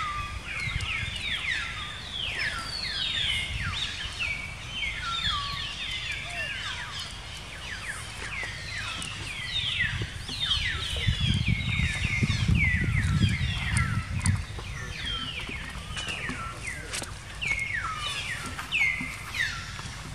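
A continuous chorus of short, high-pitched animal calls, each sliding downward in pitch, several a second and overlapping one another. A low rumble sits underneath, swelling around the middle.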